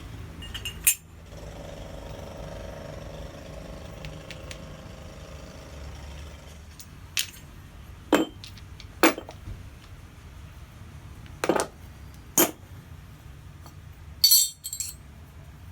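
Steel parts of a blacksmith's guillotine tool prototype clinking and knocking as they are handled and set down: about seven separate sharp metallic knocks spread through, the last a short rattling cluster near the end. A faint steady drone runs underneath for the first several seconds.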